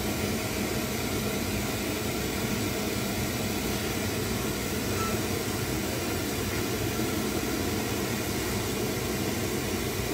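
A lit flameworking (lampwork) torch burning with a steady rushing hiss and rumble.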